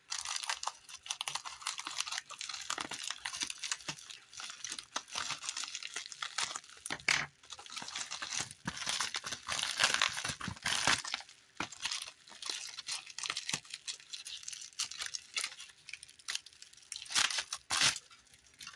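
Thin plastic packaging bag crinkling and rustling as it is handled and opened, with several louder bursts of crackling.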